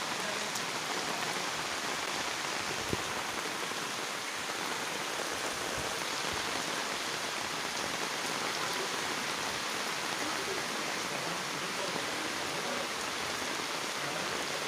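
Steady rain falling, an even hiss with no let-up, and one sharp tap about three seconds in.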